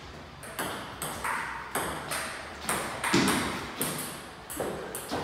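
Table tennis rally: the ball clicking sharply off the paddles and the table, about two hits a second.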